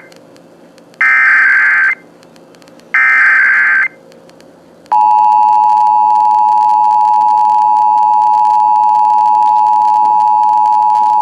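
Emergency Alert System broadcast over FM radio: two one-second bursts of warbling SAME header data, a second apart, then about five seconds in the two-tone attention signal (853 and 960 Hz) starts and holds steadily. These are the signals that open a Required Monthly Test alert.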